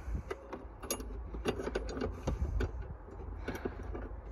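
Small irregular metallic clicks and taps of a bolt being fitted and turned by hand at the foot of a car's battery hold-down bracket, over a low steady rumble.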